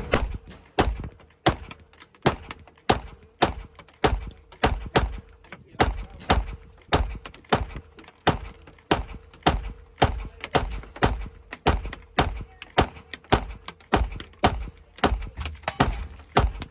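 Gunshots at a shooting range, a steady string of sharp reports at about two a second, with a faint steady hum underneath.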